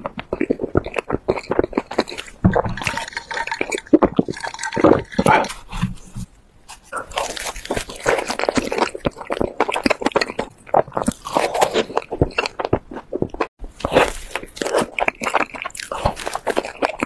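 Close-miked mouth sounds of a person eating soft, sugar-dusted filled doughnuts: chewing, biting and lip-smacking in a dense run of small clicks and smacks, with a brief lull about six seconds in.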